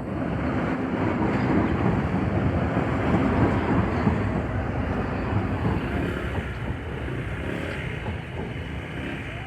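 A train passing over the level crossing: a steady rumble of wheels on rail that is loudest in the first few seconds and eases off after about six seconds.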